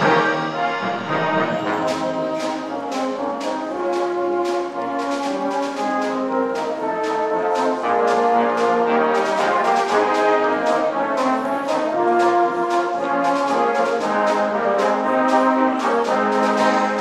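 Salvation Army brass band playing a piece in full harmony: held brass chords that move from note to note over a steady percussion beat.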